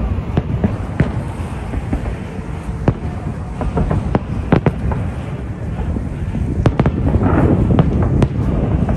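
Fireworks going off: a string of sharp bangs and pops over a steady low rumble, with a denser patch of crackling about seven seconds in.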